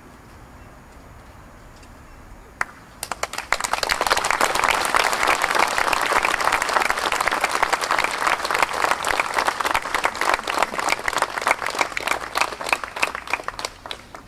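Crowd applauding: a few first claps about two and a half seconds in, quickly swelling into full, dense applause that thins out near the end.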